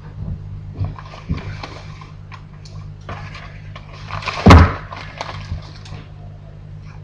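A parcel being torn open by hand: paper and packaging rustling and ripping, with one sudden loud rip about four and a half seconds in.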